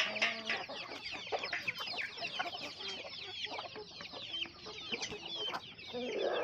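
A flock of free-range desi chickens calling: many overlapping short, high, falling chirps, with a few lower clucks among them.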